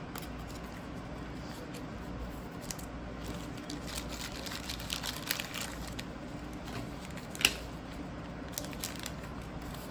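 Trading cards and clear plastic card stands being handled: light clicks and rustles of card and plastic, with one sharper click about seven and a half seconds in. A faint steady low hum lies underneath.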